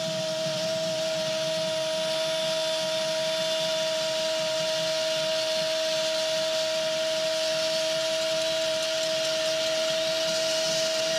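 Football commentator's long drawn-out 'goooool' call, held on one steady pitch for the whole stretch, announcing a goal. Stadium crowd noise runs underneath.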